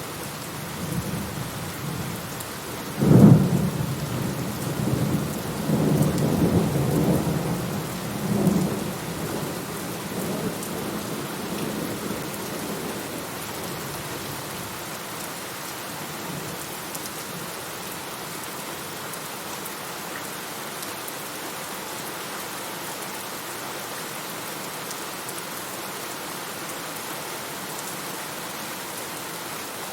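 Steady heavy rain falling, with a thunderclap about three seconds in: a sharp crack followed by rolling rumbles that fade out over the next ten seconds, leaving only the rain.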